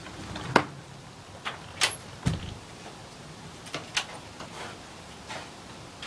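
Irregular sharp clicks and knocks, about ten of them, the sharpest about half a second in, with a low thump a little over two seconds in.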